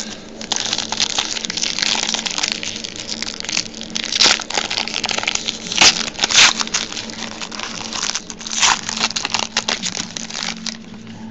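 Foil trading-card pack wrappers crinkling and crackling as packs are opened and cards handled, with a few louder crackles. A faint steady hum sits underneath.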